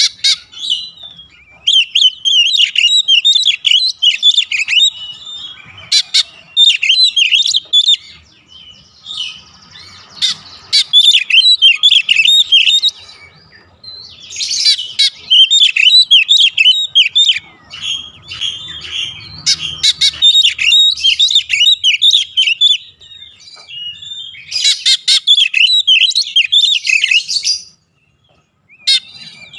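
Male oriental magpie-robin singing: fast, varied warbling phrases several seconds long, broken by short pauses.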